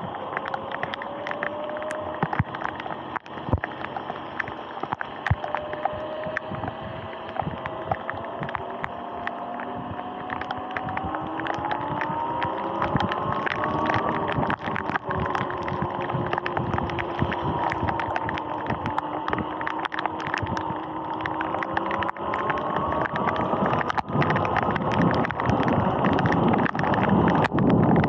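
Sur-Ron electric dirt bike's motor whining while riding, the whine rising in pitch as the bike gathers speed, dipping about halfway through and then rising again. Under it is a steady hiss of tyres on the wet road with many sharp ticks, and wind rumble on the microphone grows near the end.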